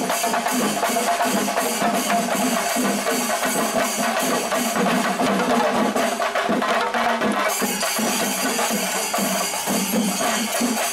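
Kerala temple percussion ensemble, chenda drums with cymbals, playing a dense, fast, unbroken rhythm.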